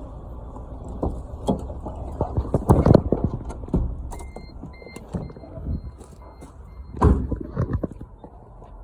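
1997 Geo Tracker's engine idling steadily, with a string of irregular knocks and clicks over it, the loudest about three seconds in and again about seven seconds in.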